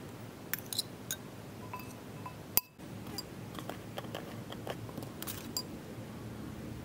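A metal spoon clinks lightly against a glass mixing bowl as salad is stirred. A single sharp click and a brief dropout follow, then a run of small irregular clicks and scrapes as a plastic screw lid is twisted off a small glass spice jar and the jar is handled.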